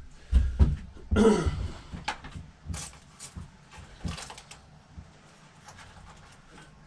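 A few light knocks and small clicks of parts and tools being handled on a motorcycle, with a short pitched sound that falls in pitch about a second in. It thins out to quiet ticks toward the end.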